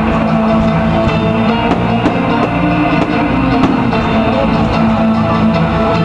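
Loud music with a drum kit and guitar, with a steady beat.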